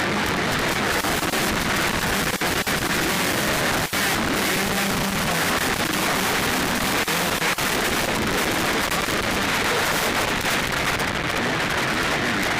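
Motocross bikes racing, heard through a badly distorted, crackling recording. The sound is loud and constant, with faint engine pitch wavering underneath and a few brief dropouts.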